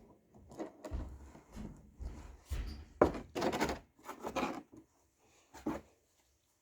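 Irregular handling noises: knocks, thuds and rustles, with a sharp click about three seconds in.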